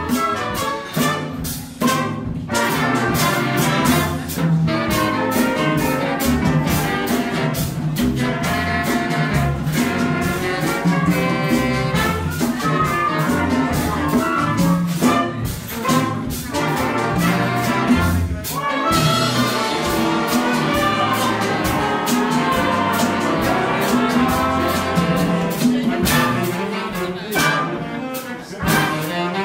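A Latin fanfare band of trumpets, saxophones and flutes plays live over congas and a drum kit, with a steady beat.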